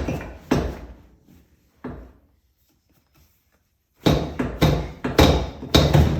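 An unbolted car seat on its steel frame being wiggled and rocked free of its floor mounts: a few sharp clunks in the first two seconds, then a quick run of heavy knocks and rattles from about four seconds in.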